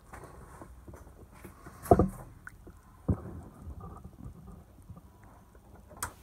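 Two dull knocks with handheld handling noise, then a short sharp click near the end as a power strip's rocker switch is flipped on.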